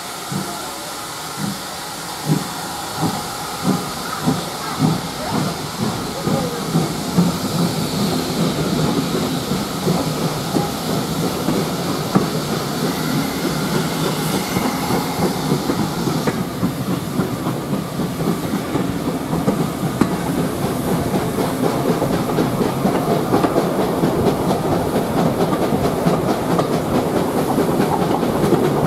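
Steam locomotive pulling a passenger train away: separate exhaust chuffs come closer together over the first several seconds and merge into steady running noise. Steam hiss and wheels clicking over rail joints join in as it gathers speed, heard from beside a carriage.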